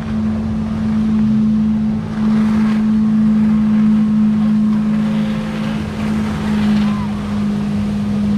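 A boat engine idling, a steady low hum that does not change in pitch, with faint voices in the background.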